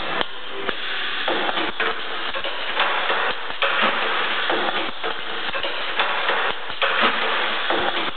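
Pneumatic cheese-box assembling machine cycling: repeated clacks of its air cylinders and short bursts of air hiss, coming at an uneven pace.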